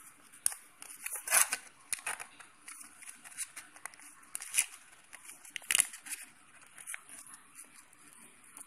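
Foil sachet of instant yeast crinkling and crackling as it is handled and opened, with irregular sharp crackles, loudest once near the start and again past the middle.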